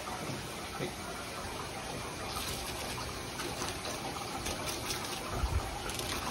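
Steady rush of water running from a tap, with faint clicks from about two seconds in as a long knife works a large fish fillet off the backbone.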